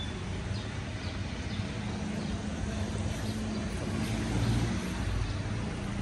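A vehicle running: a steady low rumble with a faint held engine tone.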